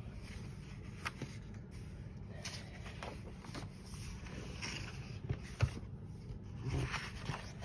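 Paper pages of a coloring book being turned and handled: soft rustling swishes with a few light taps.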